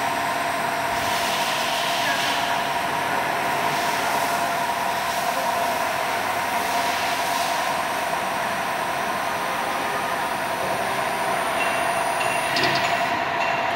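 Steady mechanical drone with a constant high whine and hiss, unchanging in level, with a short shift in the higher tones near the end.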